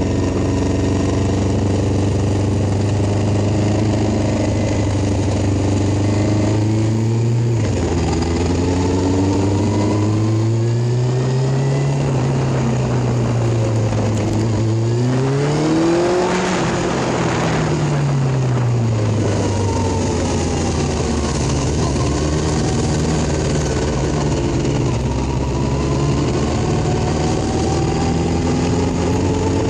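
Motorcycle engine running at low road speed: steady at first, then its pitch rises and falls twice through the middle as it speeds up and eases off, before settling steady again. A louder rush of noise comes around the middle.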